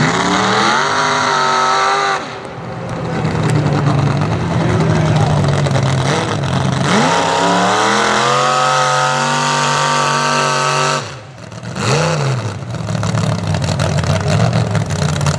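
Chevy mud truck's engine revving hard in bursts while the truck drives through deep mud. The engine climbs in pitch twice, lets off sharply about eleven seconds in, then gives a quick blip.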